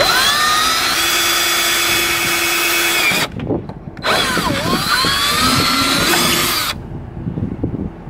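Handheld power drill boring a hole through the edge of a car's front bumper: two runs of about three seconds each with a brief pause between. The motor's whine sweeps up as it spins up and sags as the bit bites in.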